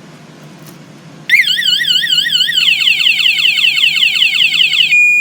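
Motorcycle alarm siren set off by a touch on the armed bike. About a second in it starts loud with a fast warble, then changes to a rapid run of falling chirps, about six a second, and near the end switches to a steady tone.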